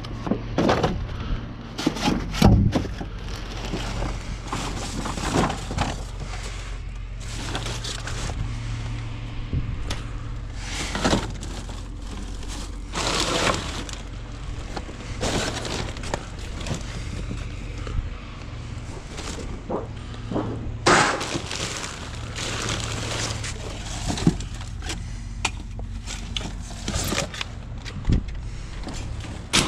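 Trash being rummaged through in a steel dumpster: cardboard boxes and packaging shuffled, tossed and crumpled, with irregular rustles, knocks and clatters, over a steady low hum.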